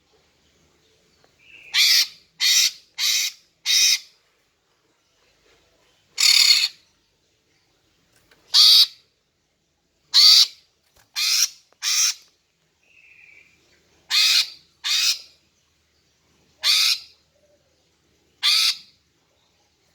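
Female greater green leafbird (cucak ijo) calling: about a dozen short calls, singly and in quick runs of two to four, with pauses of a second or two between. These female calls are used as a lure to provoke male leafbirds into answering and singing.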